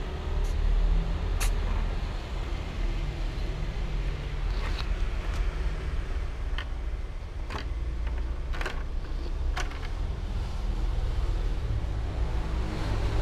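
A kitten batting a ballpoint pen around a wooden desktop: a handful of sharp clicks and taps scattered through, over a steady low rumble.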